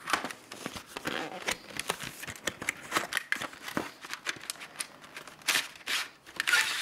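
A cardboard product box being opened by hand and a plastic tray slid out of it: rustling, scraping and clicking of the paper and plastic packaging, busiest near the end.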